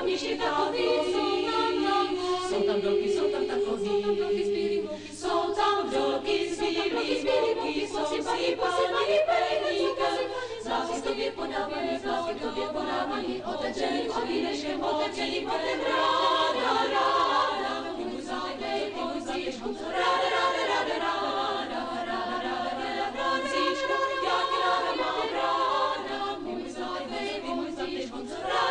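Thirty-member women's chamber choir singing in several voices, with a brief break about five seconds in.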